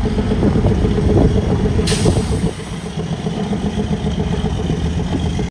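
Heavy diesel truck engine running, louder for the first two and a half seconds and then easing off, with a brief hiss about two seconds in.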